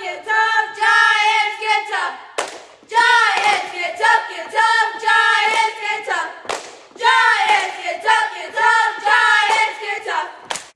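A small group of girls chanting a cheer in unison, shouting short pitched phrases in a steady rhythm, with a few sharp claps between phrases.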